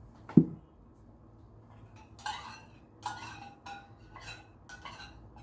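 A spoon clinking and scraping against a dish several times, as something is mixed in it, with a single sharp knock about half a second in.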